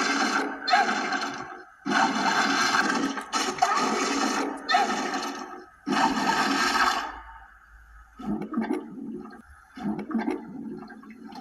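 Cartoon flood water rushing and splashing in a run of loud surges for about seven seconds, then a few quieter, shorter splashes.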